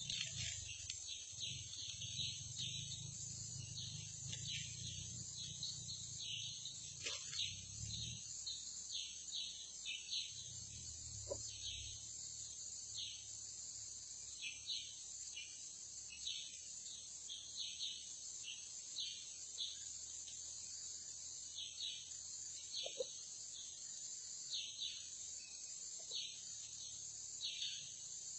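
Insect chorus: a steady high-pitched drone with short chirps repeating over it about once or twice a second, and a low rumble during the first eight seconds and again briefly around ten to twelve seconds in.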